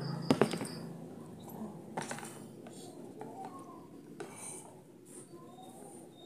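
Eating with chopsticks from a cup of instant noodles: two sharp clicks close together near the start, then a few softer clicks and small eating noises.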